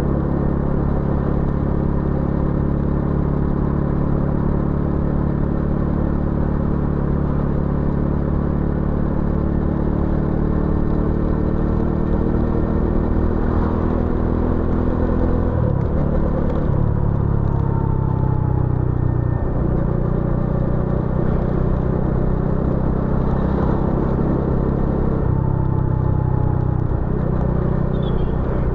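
Bajaj Dominar 400 motorcycle's single-cylinder engine and exhaust running under way. The note eases slowly downward for about fifteen seconds, then shifts pitch several times in the second half, as the revs change.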